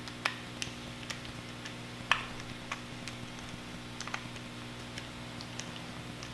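Light scattered clicks and metallic ticks of a T8 Torx screwdriver and small screws being worked out of a 3.5-inch hard drive's mounting bracket, with two louder clicks about a quarter second and two seconds in.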